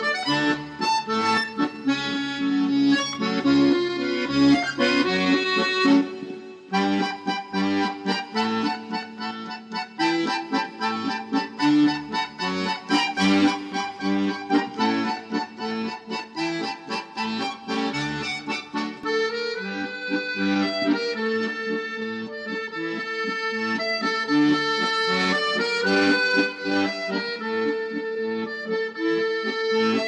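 Instrumental music, a melody over a bass line of short repeated low notes, playing steadily with a brief dip about six and a half seconds in.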